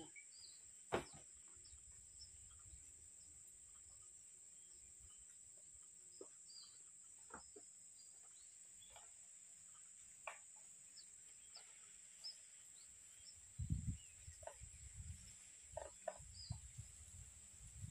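Quiet outdoor background: a steady high insect drone, typical of crickets or cicadas, with faint short bird chirps and scattered soft clicks. A sharp knock about a second in is the loudest sound, and a few low thuds come near the end.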